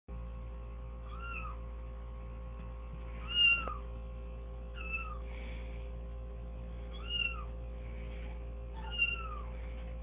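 Recorded cat meows played through stereo loudspeakers: five short meows, each rising and falling in pitch, about two seconds apart, over a steady electrical hum. A brief knock comes with the loudest meow, about three and a half seconds in.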